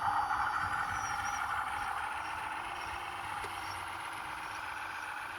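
Electric drive motors and gearing of a radio-controlled bulldozer whining steadily, a little louder at first and then easing off.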